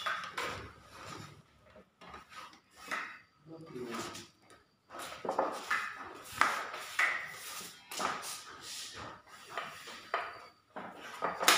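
Steel putty knives scraping skim coat across a plastered wall and clinking against each other, in a string of short scrapes and clicks.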